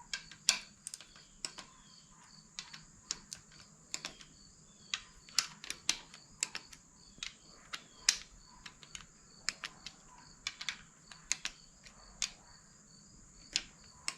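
A cheap Harbor Freight torque wrench being run over engine bolts a second time to check their torque, giving a string of sharp, irregular metal clicks, some much louder than others.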